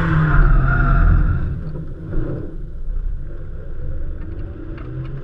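Honda S2000's tyres squealing in a spin, with a heavy low rumble. Both fade out about a second and a half in, leaving the car's engine running quieter, with a few light ticks.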